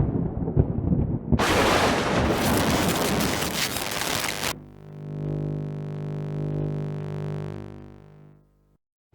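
Synthesizer music: a low rumble, then a loud hissing swell for about three seconds, then a sustained chord that fades out to silence.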